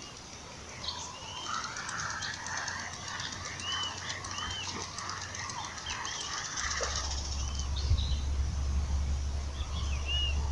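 Birds calling: repeated short arched chirps over a dense, rapid ticking chatter. A low rumble comes in about two-thirds of the way through.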